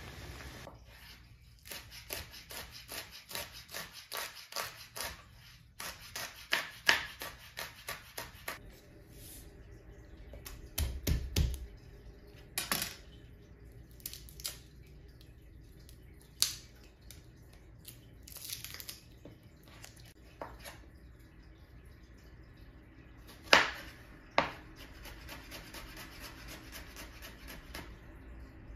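Kitchen prep on a wooden cutting board: several seconds of rapid, even knife chopping, then scattered small clicks and rustling of garlic cloves being peeled by hand, with two sharp knocks of the knife on the board.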